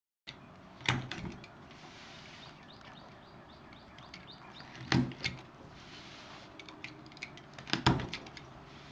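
Laser-cut plywood gears being punched out of their sheet: three sharp wooden clacks, about a second in, around five seconds and near the end, with lighter clicks and taps between.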